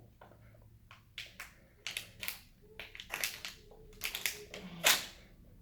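Irregular handling noises: a run of short crackles and taps close to the microphone, the loudest one near the end.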